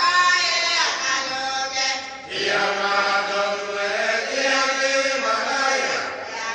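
A Cook Islands church group of men and women singing together in full voice, unaccompanied, holding long notes. The singing dips briefly for a breath about two seconds in.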